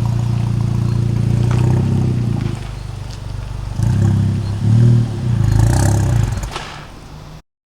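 Car engine running steadily, then blipped up and down in short revs a few times, cutting off abruptly near the end.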